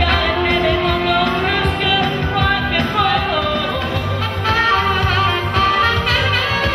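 Live band music: a woman singing into a microphone, backed by saxophone and electronic keyboard.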